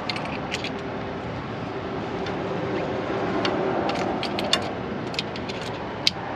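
Scattered sharp clicks and light metallic taps from hands and a tool working a spin-on filter being threaded back onto its mount on a Kenworth T680 diesel engine, over a steady background noise. The sharpest clicks come about four and a half and six seconds in.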